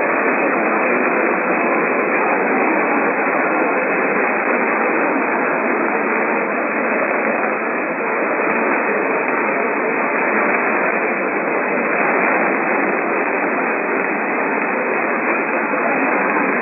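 Steady hiss of radio static on a receiver, with no voice or alert tones coming through.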